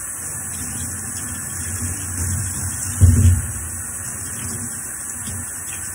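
Tap water running steadily and splashing onto a screen-printing screen in a stainless steel sink as the dish soap is rinsed off, with a louder low thump about three seconds in.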